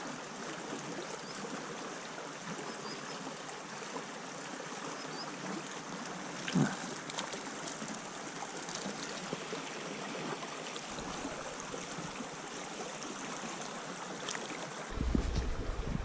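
Small brook running over rocks, a steady rush and trickle of shallow water. A short thump sounds about six and a half seconds in, and a low rumble joins near the end.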